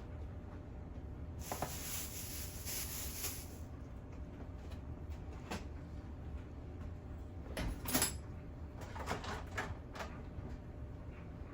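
Kitchen handling sounds: a brief rustle lasting about two seconds near the start, then a few scattered knocks and clacks of items being set down and moved about.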